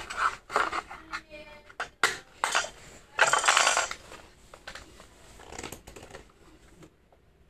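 Clicks, knocks and rustling as a baby handles a toy on a hardwood floor. The loudest scrapes come about two seconds in and again a little past three seconds, then the handling grows quieter.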